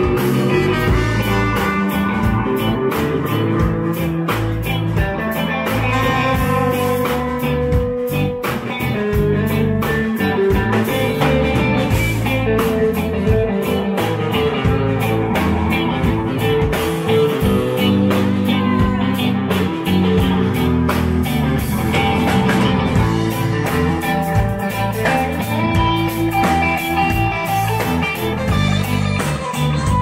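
Live rock band playing an instrumental passage: electric guitar leading over bass guitar and drums, with a trumpet playing as well.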